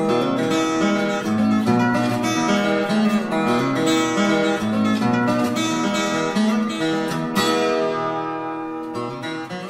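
Background music: acoustic guitar picking and strumming, fading out toward the end.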